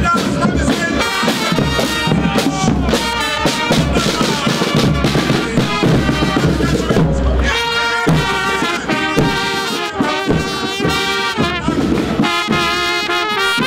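Marching band of drums and brass playing. A steady beat of snare and bass drums, with trumpets and trombones carrying the tune clearly from about eight seconds in.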